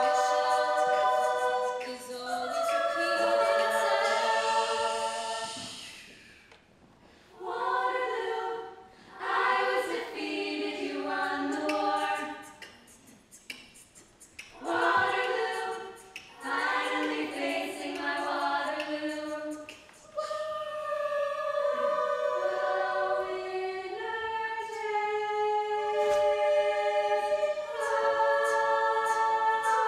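Female a cappella group singing, several voices in close harmony with a lead voice at the microphone. The phrases break off briefly a few times, and the last third holds longer chords.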